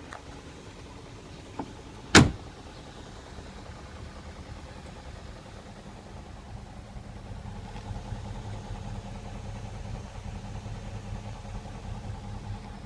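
BMW M62B44 4.4-litre V8 running steadily in a car whose owner reports VANOS knock. About two seconds in there is a single loud thump, and the engine grows somewhat louder from about eight seconds in.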